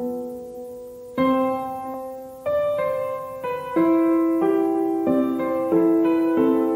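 Background piano music: gentle chords struck one after another, each ringing on and fading before the next.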